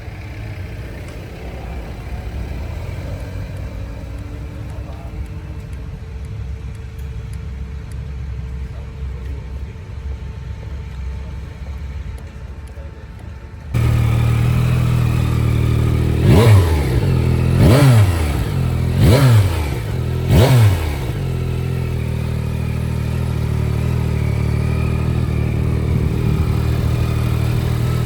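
Yamaha XSR900 GP's 890 cc inline-three engine idling, then blipped four times in quick succession, each rev rising sharply and dropping straight back to idle, before settling back to a steady idle. The engine cuts in suddenly about halfway through, after a quieter steady background.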